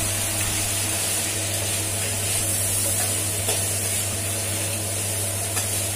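Boiled, diced potatoes frying in oil in a stainless steel pot, sizzling steadily while a utensil stirs them, with a few light scrapes against the pot.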